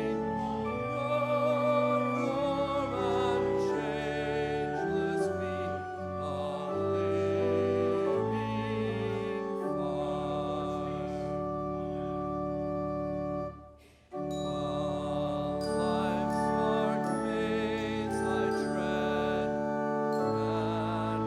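Church organ playing sustained chords with singing, the chords changing every second or so, and one brief break about two-thirds of the way through.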